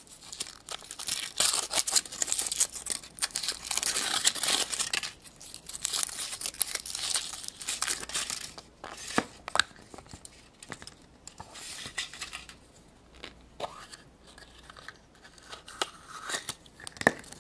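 Thin foil wrapper of a Kinder Surprise chocolate egg being torn and peeled off, a dense crinkling rustle for several seconds. Then quieter scattered clicks and crackles as the egg is broken open and its plastic toy capsule is handled.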